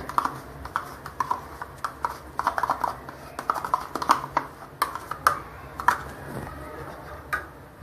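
Scattered light clicks and clinks of a spoon or utensil against a mixing bowl and container as yogurt is added to cake batter, a few of the clinks ringing briefly.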